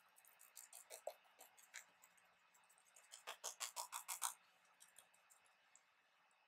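Faint, sticky smacks of palms and fingertips patting a tacky jelly primer into the skin of the face: a few soft pats, then a quick run of about eight in a second.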